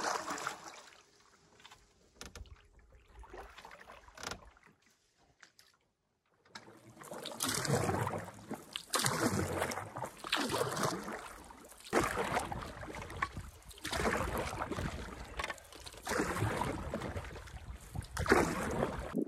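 Canoe being paddled: a wooden paddle pulls through the lake water in a steady rhythm, one swishing stroke about every second and a half. The strokes start about seven seconds in, after a quiet opening.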